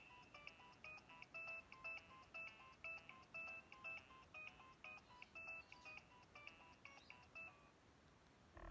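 Nokia 2115 mobile phone playing a ringtone: a quick melody of short electronic beep notes that stops about seven and a half seconds in.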